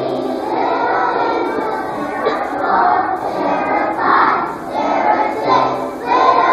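Children's choir singing together, heard over the murmur of a large crowd of children.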